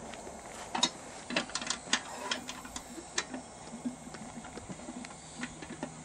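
Irregular sharp metallic clicks and taps from a stainless-steel screw-type honey press being handled and turned over honeycomb, most of them in the first half.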